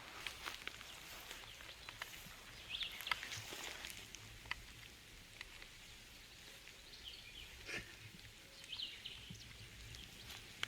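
Faint outdoor ambience with two short bursts of high bird chirps, one about three seconds in and another around seven to nine seconds, over scattered light ticks and a steady low rumble.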